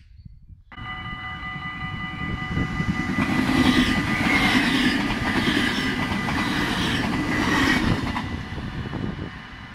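A yellow NS double-deck electric train passes close by over a level crossing. Its rumble and wheel clatter swell to a peak in the middle and fade toward the end, while the crossing's warning bell rings steadily throughout.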